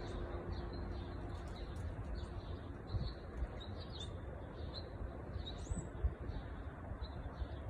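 Small birds chirping: short, high chirps scattered throughout, over a steady low rumble.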